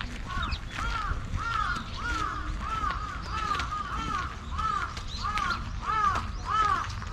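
Crows cawing over and over, about two short arched calls a second, some overlapping, over a low rumble.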